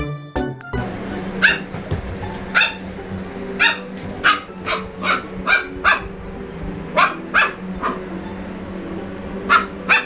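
Long-coat German Shepherd puppy's first barks: about a dozen short, high yips, some single and some in quick pairs, over a steady low hum.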